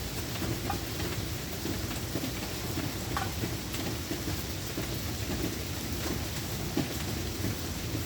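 Steady rain falling, with individual drops ticking and plinking close by, some with a short falling pitch, over a constant low rush.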